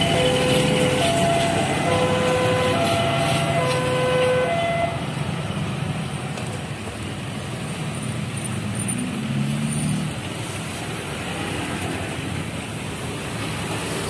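Railway level-crossing siren playing a repeating electronic melody of stepped tones, cycling about every two seconds, over the rumble of a passenger train's coaches running past on the rails. The siren stops about five seconds in, leaving only the train's running noise.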